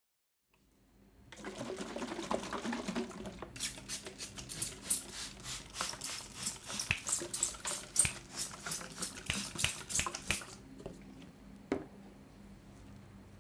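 Hands working a person's scalp in a head massage: a close rustle, then a run of quick irregular wet-sounding clicks and taps, several a second. The clicks thin out to a few near the end.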